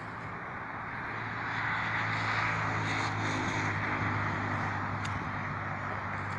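Brushless electric motor and 11x7 propeller of a hand-built RC glider in flight, running steadily, growing louder about a second and a half in and easing off towards the end.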